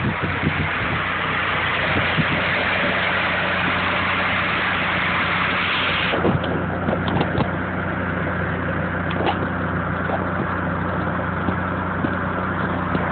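Nissan SR20DET turbocharged four-cylinder with a T25 turbo idling steadily. Over the engine note is a loud hissing noise that drops away sharply about six seconds in. This is the odd turbo noise on a turbo with no shaft play but a cracked turbo elbow.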